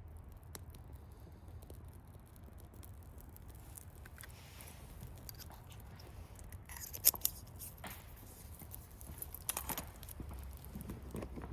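Small objects being handled: scattered light clicks, clinks and rustles, with one sharp click about seven seconds in and a quick cluster of clicks later on, over a low steady rumble.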